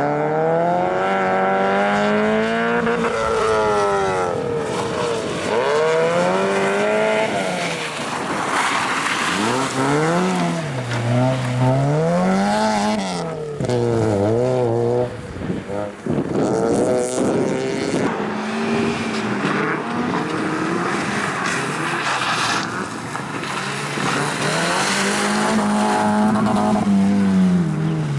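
Rally car engines revving hard on a loose, muddy stage, mostly a first-generation Mazda MX-5. The engine note climbs and drops again and again as the car accelerates, lifts and changes gear through the corners. A second car is driving near the end.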